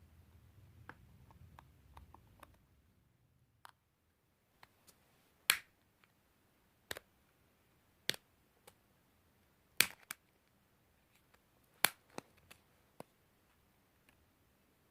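Sharp, separate clicks and taps from a Nokia mobile phone and small tools being handled during a repair, about a dozen in all, the loudest ones a second or two apart.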